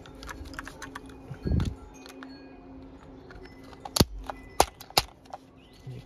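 Plastic clicks and snaps of a car seat belt retractor's clear plastic cover being handled and pressed into place on the mechanism, with a dull thump about a second and a half in and three sharp, louder clicks about four to five seconds in.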